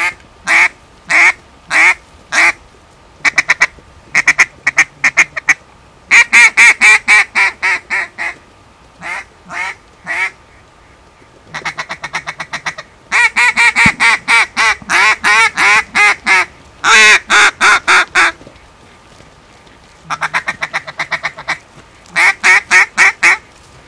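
Mouth-blown duck call sounding loud, close quacks in runs: a few single spaced quacks, then longer rapid strings of notes about halfway through, calling in ducks.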